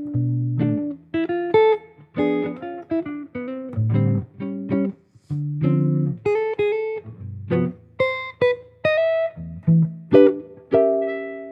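Solo jazz guitar playing chord melody: plucked chords and single melody notes over low bass notes, each ringing and fading, in loose phrases with short pauses between them.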